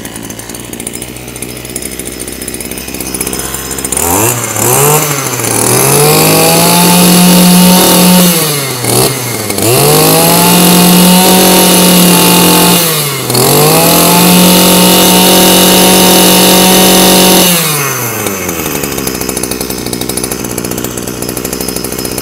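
Maruyama AD230RS 23cc two-stroke brush cutter engine running: it idles, is revved up to high speed and held there three times with brief drops in between, then settles back to idle about 18 seconds in.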